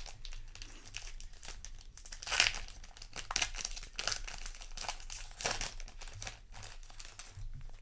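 Foil trading-card booster pack crinkling and tearing open in the hands, an irregular run of sharp crackles, loudest about two and a half and five and a half seconds in.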